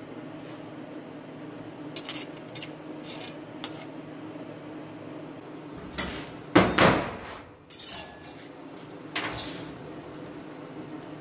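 Cut steel plates clinking and clattering against each other and a steel workbench as they are handled: a few light clinks early, the loudest clatter about six to seven seconds in, and a shorter one about nine seconds in, over a steady low hum.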